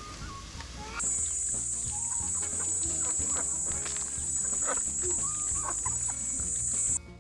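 A flock of helmeted guineafowl foraging and giving short harsh clucking calls, with a steady high hiss that starts about a second in and cuts off near the end.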